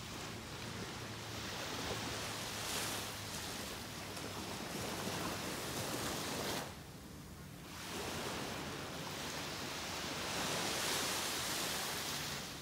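Small Gulf of Mexico waves breaking and washing up a sandy beach, a rushing surf that fades about seven seconds in, then swells again.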